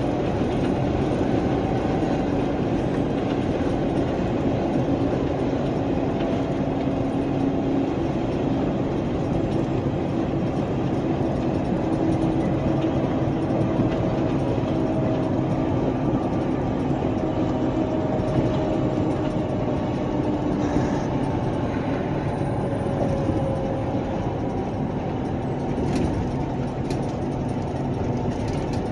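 Steady engine drone and road noise heard from inside a vehicle's cab cruising at highway speed, easing off a little near the end.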